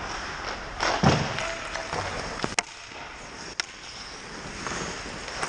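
Ice hockey play close to the net: skates scraping the ice, with a heavy thud about a second in and two sharp clacks a second apart near the middle.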